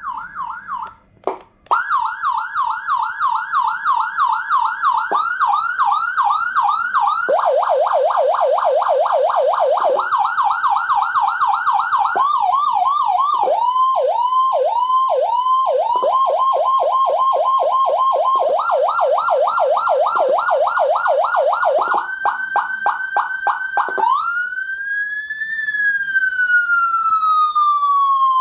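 150HX 150-watt electronic siren sounding through its speaker and stepping through several tones: quick repeating sweeps, faster warbles and yelps that change every few seconds. Near the end it turns to one slow wail that rises and then falls.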